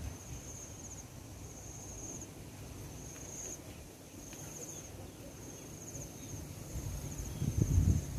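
An insect chirping: short, high-pitched trilled chirps repeating steadily, about one every two-thirds of a second. Low rumbling noise swells in near the end.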